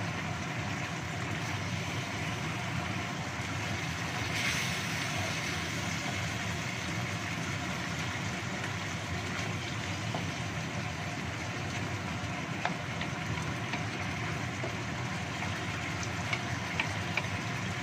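Chicken in sweet soy chilli sauce sizzling and bubbling in a wok, a steady even hiss, while a wooden spatula stirs it. A few light clicks of the spatula against the pan come near the end.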